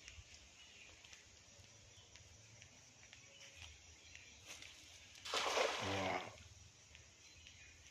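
A thrown cast net landing flat on pond water about five seconds in: one splash lasting about a second as the weighted rim and mesh strike the surface.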